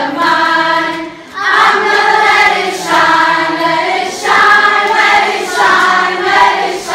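A group of children and a few adults singing a song together in unison, in phrases with long held notes and a short break about a second in.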